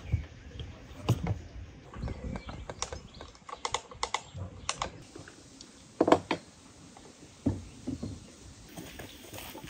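Irregular run of sharp clicks and clacks from a hand seaming tool crimping a tin lid onto a glass canning jar, and from glass jars set down on a wooden table, with a louder knock about six seconds in.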